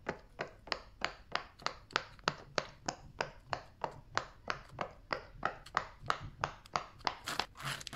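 A fidget toy being clicked or popped over and over in a steady rhythm of sharp clicks, about three a second.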